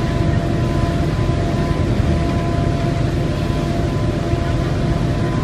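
Detroit Diesel Series 50 engine of a 1995 New Flyer D40LF transit bus running steadily under way, heard from inside the passenger cabin, with a steady high tone over the low engine sound and tyre noise from the wet road.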